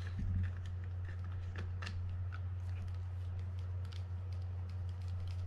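Faint, scattered small clicks and light taps of spinning-reel parts being handled and turned on the workbench, with a soft thump at the start, over a steady low hum.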